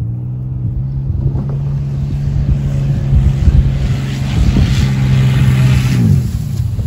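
Minivan engine running on canola oil in place of motor oil as the van drives up and passes close by. The engine note and tyre noise grow louder as it approaches, the pitch drops slightly as it goes past about six seconds in, and then it fades, with scattered knocks and clunks along the way.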